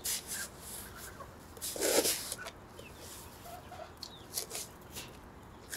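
A steel shovel scraping and scooping wet cement mortar in a rubber basin, in short repeated scrapes, with chickens clucking.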